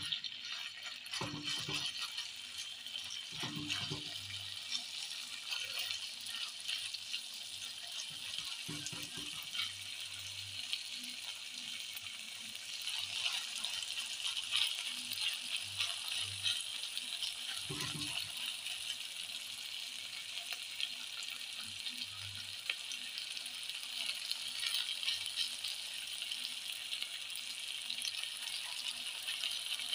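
Raw minced meat and onion sizzling on a hot pan while being pressed into a burger patty: a steady hiss with fine crackles, broken by a few soft low thumps.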